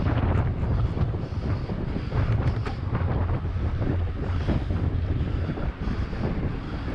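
Wind buffeting the microphone of a camera riding along on a bicycle at race speed: a steady low rumble with rushing noise and a few brief rattles from the bike and road.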